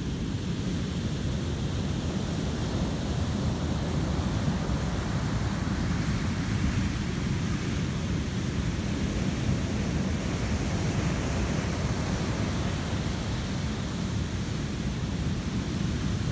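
Heavy ocean surf breaking and washing up a sand beach: a continuous roar, heavy in the low end, with the hiss of whitewater swelling about halfway through and then easing off.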